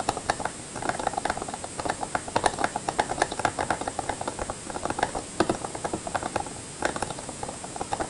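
Keyboard fitted with new keycaps being typed on fast, a dense run of clacking keystrokes in flurries with short pauses between.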